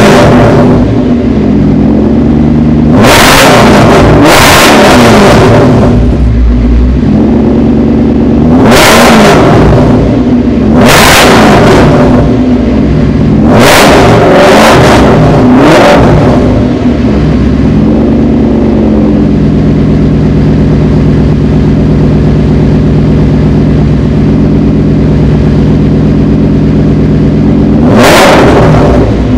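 Supercharged 5.4-litre V8 of a 2009 Ford Mustang Shelby GT500, breathing through Bassani headers and X-pipe and a Cervini's side-exit exhaust, idling loudly between sharp throttle blips. It revs about eight times: a pair of quick revs, two single revs, a run of three in a row, and one last rev near the end.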